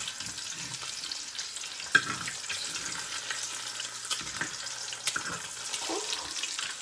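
Food sizzling in a hot frying pan, a steady hiss, with a few sharp clicks of a utensil against the pan as it is worked.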